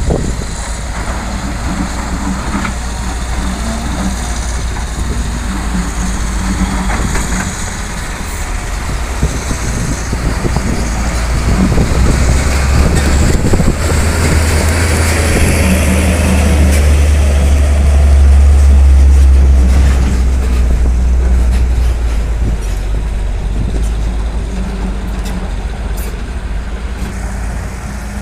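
Diesel dump truck engine running, growing louder to a peak about two-thirds of the way through, then easing off.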